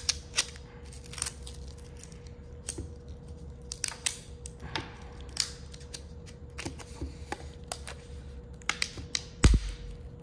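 Tape and a grey insulating cover being peeled and pried off a pack of 18650 lithium-ion cells: scattered crackles, clicks and rustles, with a heavier thump near the end.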